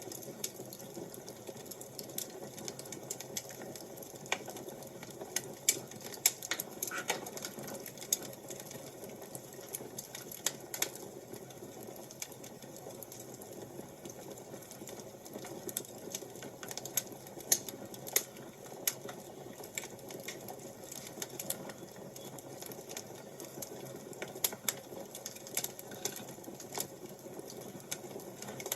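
Fire crackling: irregular sharp pops and snaps over a steady low hiss.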